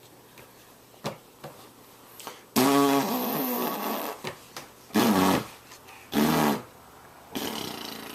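Mouth noises from a vocal game: three loud, pitched lip buzzes like blown raspberries, the first lasting about a second and a half and the next two short, followed by a breathy rasp near the end. A few faint mouth clicks come before them.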